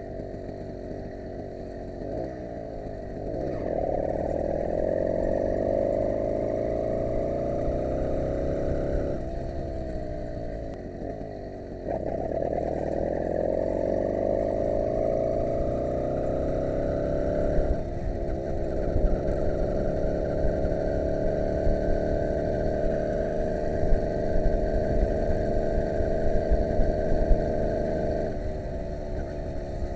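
80cc two-stroke motorized-bicycle engine with open transfer ports and a high-compression head, under way: it revs up, eases off for a few seconds, then revs up again and holds a steady high pitch at cruising speed. Wind rumbles on the microphone underneath.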